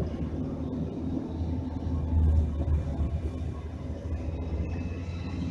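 Low, steady rumble of a car's engine and tyres heard from inside its cabin at low road speed, swelling briefly about two seconds in.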